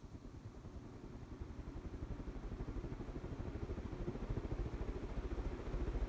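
1985 Casablanca Zephyr 52-inch ceiling fan running in reverse and speeding up. It grows steadily louder, with a fast, even low pulsing from the wobbling fan.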